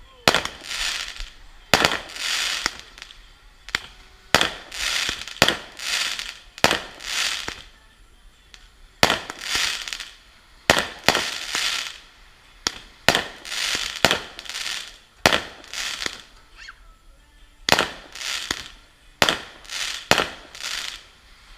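Consumer fireworks going off in a rapid series, about two dozen loud shots, each a sharp bang trailing into a short hissing crackle.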